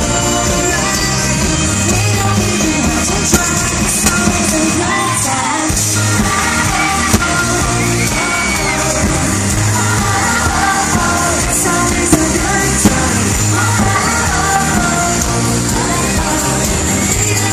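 Live pop band playing loud amplified music with electric guitar and drums, a female lead singer singing over it, heard from within the audience.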